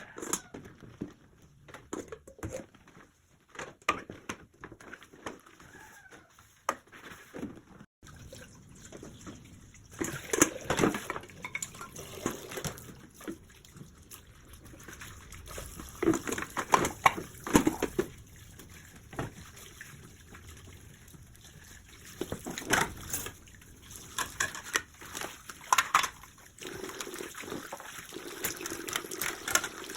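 Kitchen tap water running and splashing at the sink, coming in louder about a third of the way through, with scattered sharp knocks and clinks of kitchen items.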